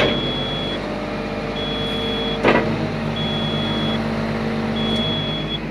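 Komatsu PW180 wheeled excavator's diesel engine running steadily with the hydraulics working, while a high-pitched cab warning buzzer beeps on and off about once every second and a half. A sharp metallic clunk comes about two and a half seconds in, as the machine's note changes.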